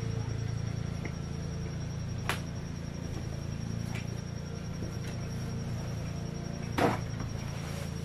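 Steady low electrical hum, with two brief clicks about two and seven seconds in.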